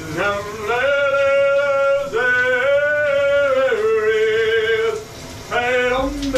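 A man's voice letting out four long, high, held cries, the first three over a second each and the last one short, as he stands under a cold shower.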